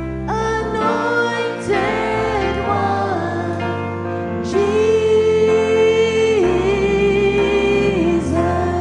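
Christian worship music: a voice sings long held notes that step from pitch to pitch over sustained bass notes and band accompaniment.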